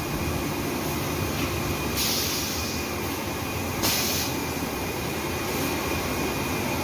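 Steady factory-floor machinery noise with a faint steady whine, broken by two short hisses about two and four seconds in.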